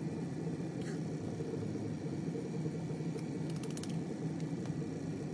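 A steady low hum of background noise, with a short run of faint clicks about three and a half seconds in.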